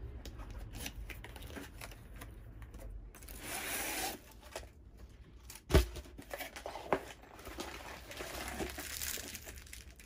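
Packaging of a diamond painting kit being handled as the rolled canvas comes out of its box: rustling and crinkling, with a dull thump about halfway through and a smaller knock a second later.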